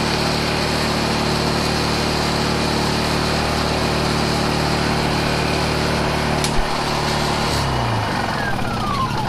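Honda EU2000i inverter generator's single-cylinder four-stroke engine running steadily, its idle control not working. About six and a half seconds in there is a click, then the engine winds down with a falling hum and stops near the end.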